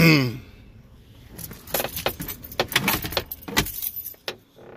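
Irregular light clinks and rattles, the jangle of small hard objects being handled in a truck cab, starting about one and a half seconds in and stopping shortly before the end.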